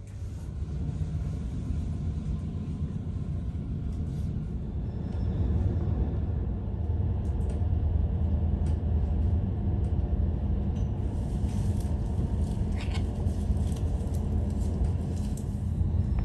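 Low rumble of a passenger train heard from inside the carriage as it pulls out of a station and gathers speed. The rumble grows louder about five seconds in, with scattered faint clicks and rattles.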